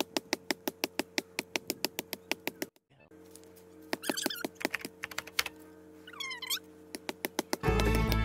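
A blade chopping into a small tree trunk over and over, sped up into rapid knocks about eight a second, which break off briefly a little under three seconds in and then go on with two short high chirpy bursts. Guitar music comes in near the end.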